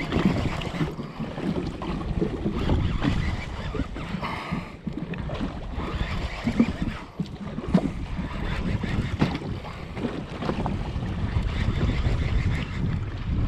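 Wind buffeting the microphone in gusts, with choppy sea slapping and splashing against the hull of a jetski.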